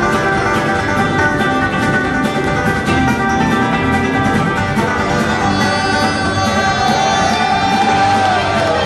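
Live bluegrass band playing: acoustic guitar and banjo over a full band, with singing.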